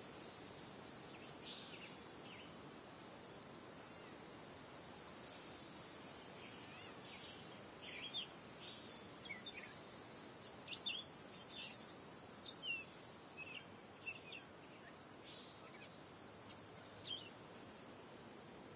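Nature ambience: a steady high insect drone, with a pulsed trill that swells four times, about every four to five seconds. Scattered short bird chirps come in the middle.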